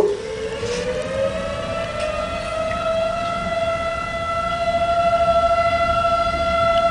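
Tornado warning siren sounding one long wail. Its pitch rises over the first few seconds, then holds steady and grows a little louder in the second half.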